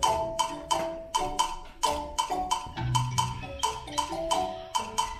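Recorded dance music played through a hall's sound system. It has a crisp, clicky percussive beat of sharp hits several times a second under short repeating pitched notes.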